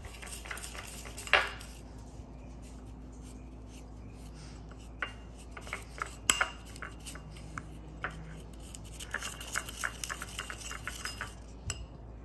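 Plastic fork scraping and tapping against a bowl while mixing a powder and gel into a stiff paste: irregular clicks and scrapes, with a louder clack about a second in and another around six seconds, and a quick run of taps near the end.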